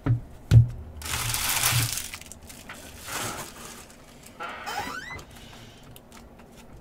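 Two thumps near the start, then a foil trading-card pack wrapper crackling and tearing as it is opened by hand, in a few separate rustles.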